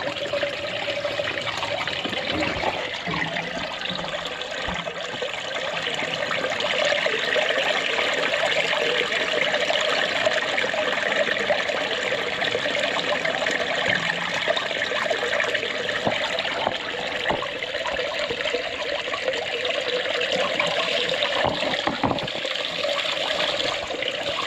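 Water running steadily into a drain gully, growing louder about six seconds in.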